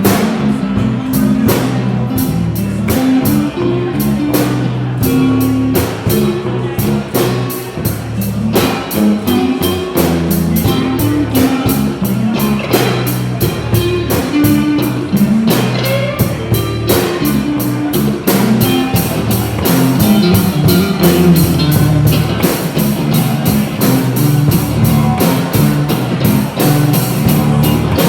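Rock music played on guitar and drum kit, with a steady beat of drum and cymbal strikes over a moving bass line.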